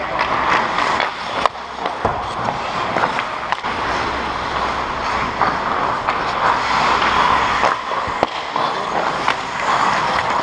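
Hockey skate blades scraping and carving the ice close by, with several sharp knocks of sticks and puck on the ice.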